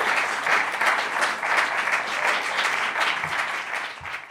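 Small audience applauding, the clapping thinning out and fading near the end.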